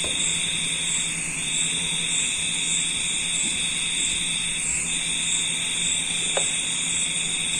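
A steady high-pitched whine that breaks off briefly about every three seconds, with a fainter, higher pulsing above it and a low steady hum beneath.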